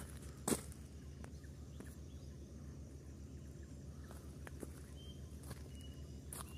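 Footsteps on rough, stony ground, heard as scattered clicks and scuffs over a low steady hum, with a few short high bird chirps near the end.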